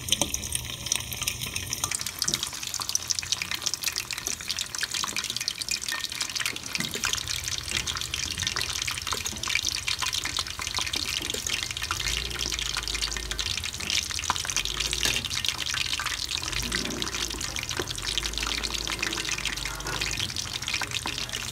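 Stuffed crab shells deep-frying in hot oil in a wok: a steady, dense sizzle and crackle of bubbling oil.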